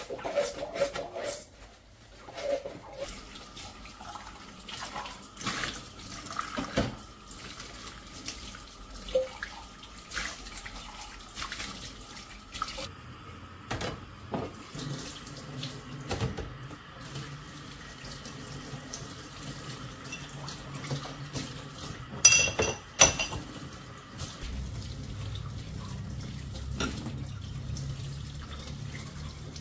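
Hand-washing glassware at a kitchen sink: tap water running and splashing, with glasses and cups knocking and clinking against each other and the sink. A couple of bright ringing glass clinks come about three-quarters of the way through, and near the end the tap runs more strongly over the hands.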